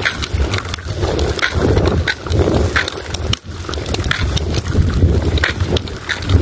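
Wind buffeting the microphone in an uneven low rumble, with scattered small knocks.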